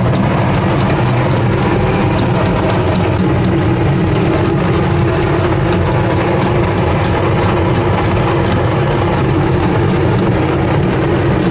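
Small stone grain mill running steadily, grinding maize into cornmeal: a continuous low mechanical hum and rumble.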